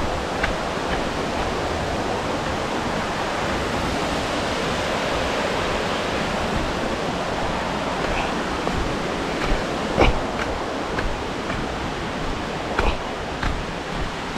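Steady rushing of a waterfall, with a few short knocks, the loudest about ten seconds in.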